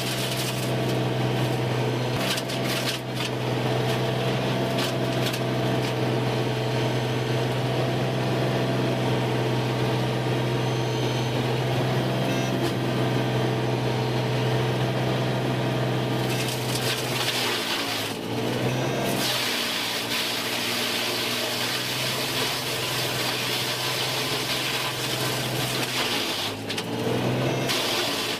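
Machinery running steadily: a constant low hum under a hiss, with a brief change in the sound about two-thirds of the way through and again near the end.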